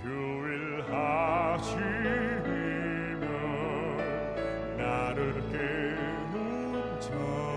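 Live band playing the slow introduction of a pop-opera ballad, with a melody line sung or played with wide vibrato over sustained accompaniment.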